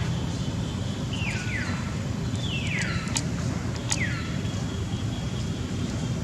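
Baby monkey crying: three short high-pitched cries, each sliding down in pitch, over a steady low rumble.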